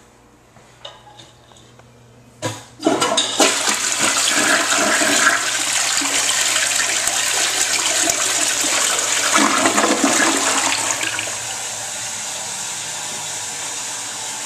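Crane Galaxy toilet flushing. After a sharp click about two and a half seconds in, a loud rush of water swirls down the bowl for about eight seconds, then eases to a steadier, quieter hiss near the end.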